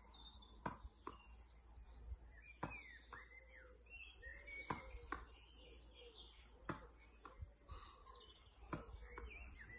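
Tennis ball knocked off a racket's strings in short punch volleys: several sharp pops, a second or two apart. Birds call in the background.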